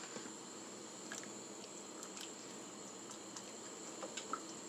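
Spoon stirring cut nopales into a pot of thick tomato-chipotle sauce: faint wet squishing with a few light, scattered clicks of the spoon.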